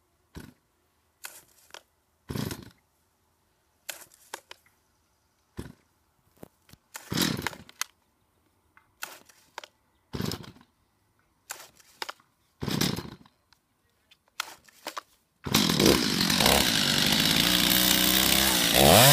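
Two-stroke chainsaw being pull-started with short strokes of the recoil cord on a cold engine, choke off after priming: about a dozen brief cranking bursts a second or so apart, then the engine catches about 15 seconds in and keeps running, revving up and down near the end.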